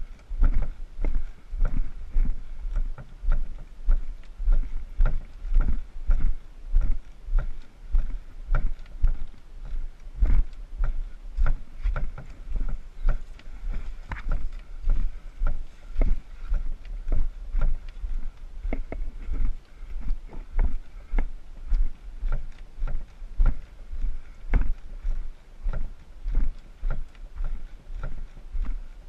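Steady walking footsteps on a dirt and rock trail, about two a second, each a dull thump. They are heard from beneath an overturned canoe carried on the walker's shoulders.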